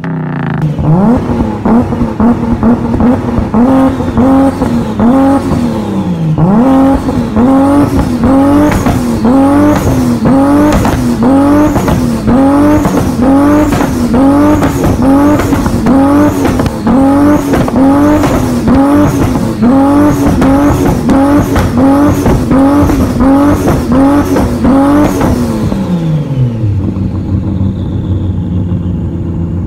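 A car engine revved over and over, about once a second, pitch rising and falling each time, with sharp pops and crackles from the exhaust as unburnt fuel ignites there (afterfire, commonly called backfire). About 25 s in the revving stops and it settles to a steady idle.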